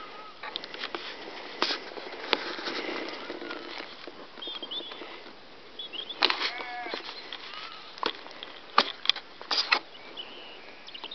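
Handling noise from a handheld camera moving through a grassy field: rustling with irregular sharp clicks and knocks. A few faint bird chirps come in the middle, and a short pitched call about six and a half seconds in.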